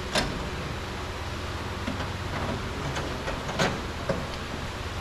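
A few sharp clicks and light knocks of hard plastic car-door parts being handled, with a steady low hum underneath. The two loudest clicks come just after the start and about three and a half seconds in.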